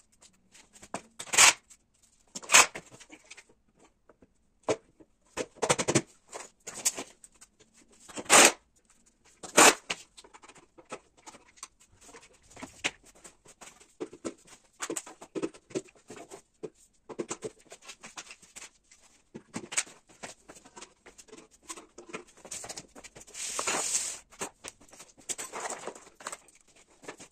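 Irregular sharp knocks and clatters as the particleboard panels of an IKEA MALM chest of drawers are handled and fitted together, with a short stretch of cardboard rustling near the end.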